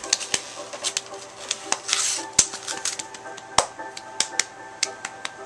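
Cardboard mailer and comic-book packaging being handled and opened by hand: a run of irregular sharp clicks and taps, with a brief rustle about two seconds in.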